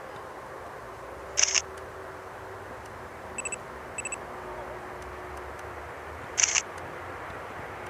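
A camera shutter clicks twice, about five seconds apart, with two short double beeps between them like autofocus confirmation tones. Under them is a low, steady background noise.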